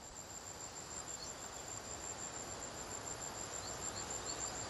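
Field ambience of insects: a steady, high-pitched cricket-like trill over a faint hiss. A few short, faint, high chirps come in from about a second in and again near the end.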